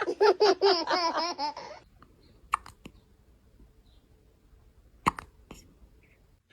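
A burst of quick, pulsing laughter, then a baby's hiccups: short, sharp hics, three close together about two and a half seconds in and two more about five seconds in.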